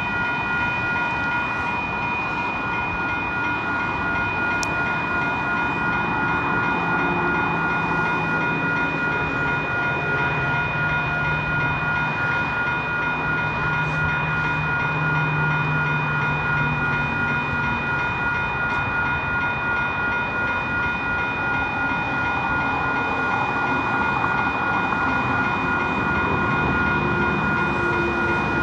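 Railroad crossing warning bell ringing steadily and without pause, with no train passing: the crossing is malfunctioning. A low rumble swells and fades in the middle.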